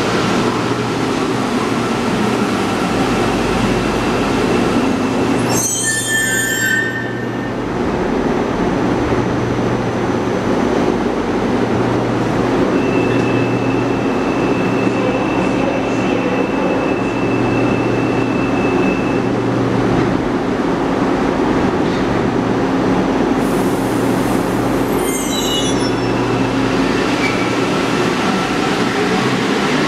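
Rubber-tyred metro trains in an underground station: a steady running rumble with a low drone that swells and fades every couple of seconds. Brief high-pitched squeals come about six seconds in and again near twenty-five seconds, and a steady high whine is held for several seconds midway.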